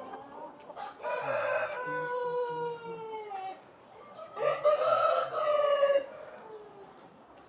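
Rooster crowing twice: a long call that slides slowly down in pitch, then a louder, shorter crow about a second later.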